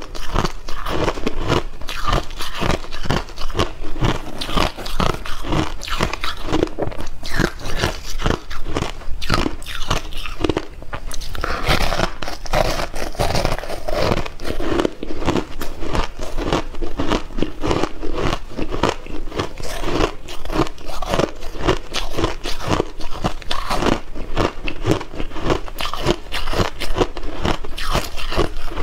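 Crushed ice being bitten and chewed, a dense run of loud crackling crunches that keeps going throughout, picked up close by a clip-on microphone at the eater's neck.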